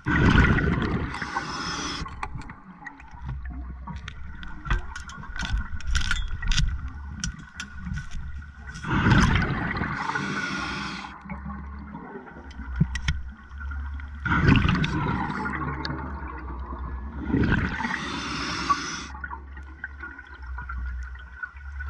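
A scuba diver breathing through a regulator underwater: about four breaths, each a loud rush of hissing and bubbling. Between the breaths come a run of short clicks.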